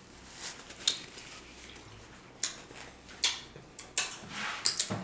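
Short, scattered crackling and smacking noises of a smoked turkey leg being pulled apart and eaten, several in quick succession in the second half.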